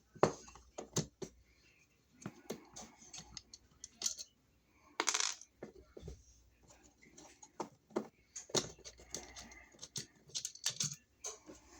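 Scattered small metallic clicks and clinks of a screwdriver, screws and metal parts as an old two-prong wall receptacle is unscrewed and taken out of its box, with a brief rasp about five seconds in.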